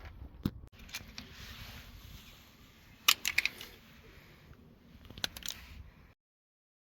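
Sharp plastic clicks and rattles from a smashed remote-control car controller being handled: single clicks in the first second, a quick cluster about three seconds in and another about five seconds in. The sound then cuts to dead silence.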